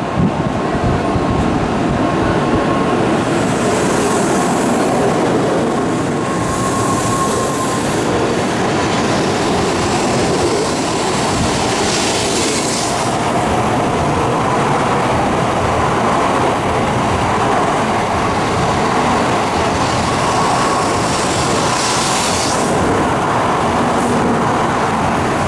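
Tokaido Shinkansen train running along the station tracks: a loud, steady rail rumble with a faint high hum and a few brief hissing surges.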